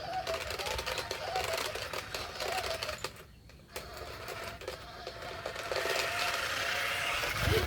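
Remote-control bumble bee stunt toy's electric drive motors whirring with fast gear chatter and a wavering buzzing tone. The sound drops out briefly about three seconds in, then resumes, and there is a low thump near the end.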